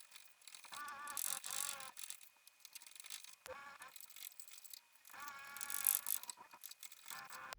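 Hand tool working wood in several separate strokes, each a scrape with a wavering squeak.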